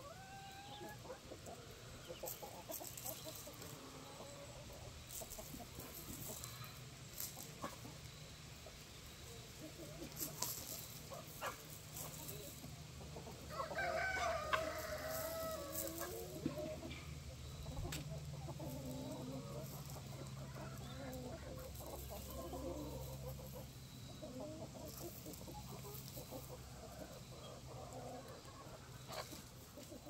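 Free-range chickens clucking, with a rooster crowing once about halfway through.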